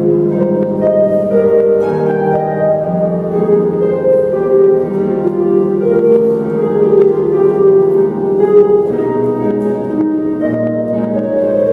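An ensemble of many concert harps playing together: plucked notes overlapping and ringing on in a flowing, steady texture.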